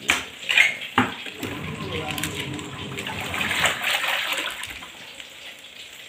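Wash tub of a Toshiba VH-H95MN twin-tub washing machine churning water and clothes, sloshing and splashing, with two sharp knocks in the first second; the sloshing grows quieter near the end.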